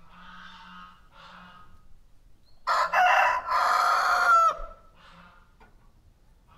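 A rooster crows once, loudly, in two parts, for nearly two seconds a little under halfway in, the call ending on a falling note. Other farmyard fowl call softly and repeatedly before and after it.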